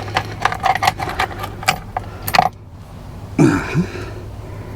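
Small metal parts clinking and rattling: screws, a metal bracket and tools handled while dashboard trim is refitted, a quick run of sharp clicks that stops about two and a half seconds in. A short squeak or creak follows about a second later.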